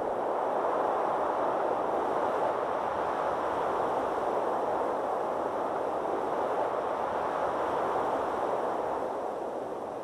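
Steady rushing noise from the performance's sound design, even and without tones or beats, easing off a little near the end.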